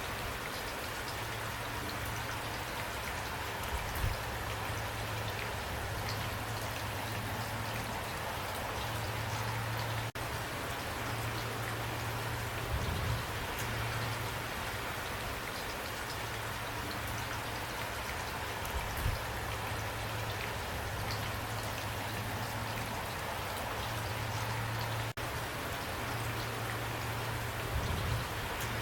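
Steady rain, with many fine drops ticking over a constant hiss and a low hum that fades in and out. A few soft thumps come near 4, 13, 19 and 28 seconds. The sound cuts out for an instant twice, at about 10 and 25 seconds.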